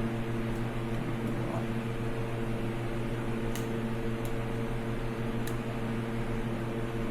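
Steady electric hum of a motor or fan running, with a few faint light clicks in the second half.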